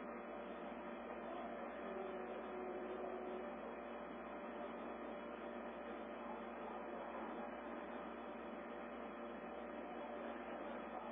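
Steady band-limited hiss with faint steady hum tones: receiver noise on an amateur-television downlink that has lost its signal.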